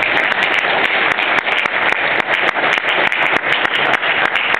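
An audience applauding: many hands clapping in a dense, steady stream.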